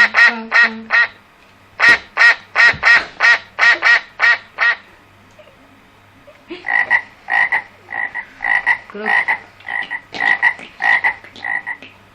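Recorded animal calls, rapid frog-like croaking, about four calls a second, in runs broken by short pauses.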